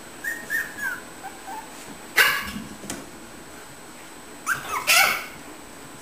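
Puppies yipping and barking: a few small high-pitched whiny yips in the first second or two, a sharp bark about two seconds in, and two more yelping barks close together near the five-second mark.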